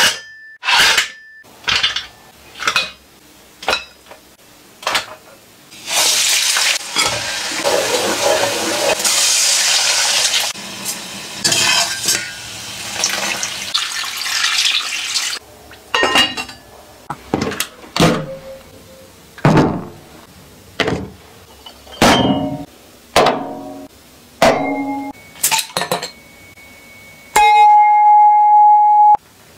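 Shellfish and other seafood tipped one batch after another into a clay pot, each landing as a sharp clatter about a second apart. In the middle a long steady pour of broth into the pot, about nine seconds of rushing liquid. Near the end a loud ringing tone held for about two seconds.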